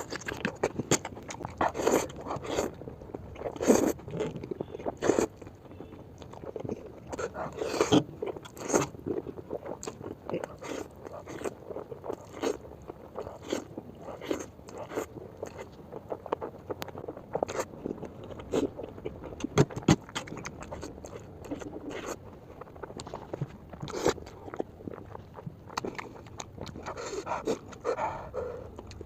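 Close-up eating sounds of noodles being chewed and bitten: a steady run of irregular wet clicks, smacks and small crunches.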